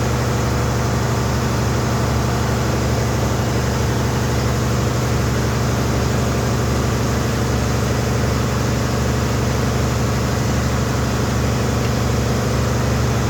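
A machine engine running steadily at idle: an even low drone with a constant hum and a fine regular pulse.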